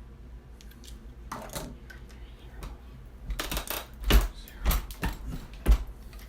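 Metallic clicks and clinks of brass rifle cases and reloading tools being handled, with a few heavier knocks in the second half.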